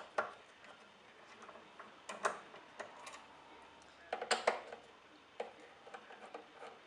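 Screwdriver working screws in the metal case of a flight data recorder, making short irregular clicks and scrapes of metal on metal, with a quick cluster of sharper clicks about four seconds in.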